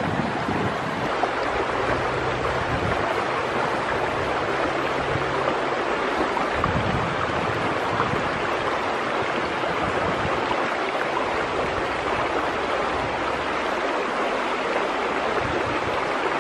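Shallow stony stream running, a steady rush of water.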